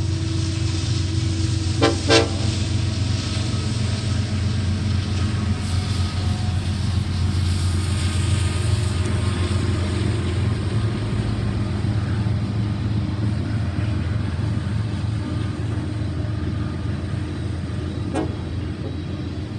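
Diesel freight train passing: a steady low rumble of the locomotive and rolling cars. Two quick horn toots about two seconds in.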